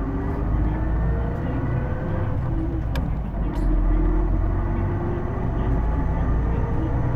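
Cabin running sound of a Hino Blue Ribbon II (PJ-KV234L1) city bus under way: a low engine rumble with a whine that rises slowly in pitch, breaks off and climbs again several times, the unusual transmission-like whine the uploader hears on this bus, sounding almost like an automatic. A couple of sharp clicks come near the middle.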